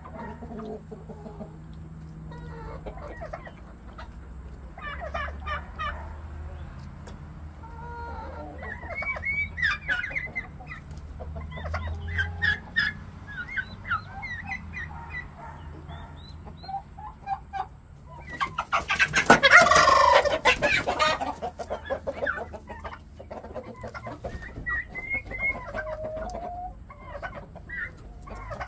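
Flock of chickens and turkeys clucking and calling in short, scattered calls. About two-thirds of the way through, one bird gives a much louder call lasting two or three seconds.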